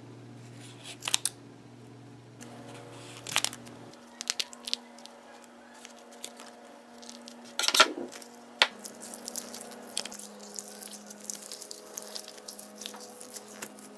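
Scissors snipping through the mesh netting wrapped around a rubber squishy stress ball: a scattering of faint, separate snips and clicks, the loudest about eight seconds in. Near the end, soft rubbery squishing as the bare ball is squeezed by hand.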